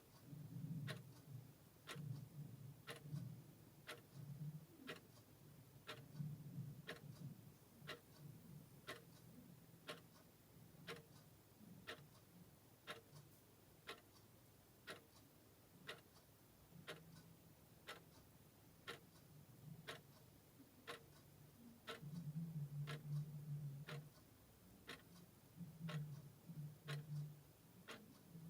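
Vintage clock ticking steadily and quietly, about three ticks every two seconds. A low rumble comes and goes beneath it and is loudest a little before the end.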